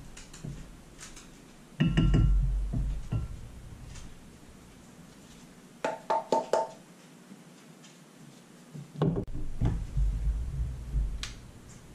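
Glassware and a wooden spoon being handled on a table: a heavy knock about two seconds in, a quick run of ringing glass clinks around six seconds, and more knocks and thuds near the end.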